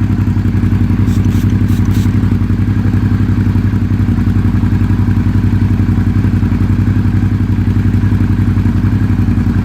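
Suzuki V-Strom DL650's V-twin engine idling steadily, its exhaust pulsing evenly. A few faint clicks sound about one to two seconds in.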